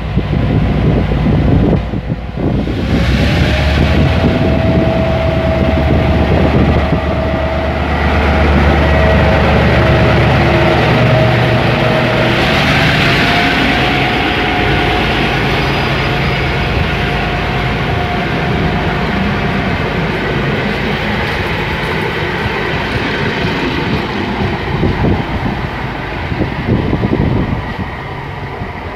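Diesel-hauled passenger train running past: deep engine rumble, a steady whine that rises slightly in pitch about halfway through, and the rushing noise of the coaches going by. It eases off as the train draws away near the end.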